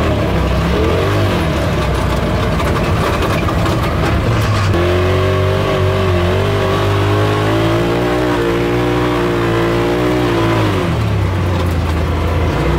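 Side-by-side UTV engine running under throttle on a dirt track, heard from inside the open cab; its pitch rises and falls as it accelerates and slows, then holds steady for several seconds in the middle before dropping again near the end.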